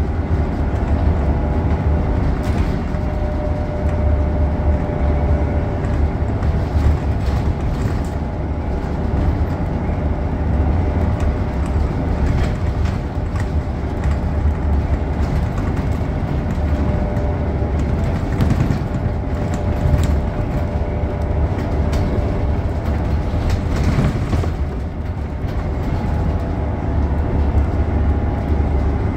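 Scania K94UB bus's rear-mounted diesel engine and driveline running under way, heard inside the passenger cabin, with heavy low road rumble, a steady hum and occasional short rattles from the bus interior.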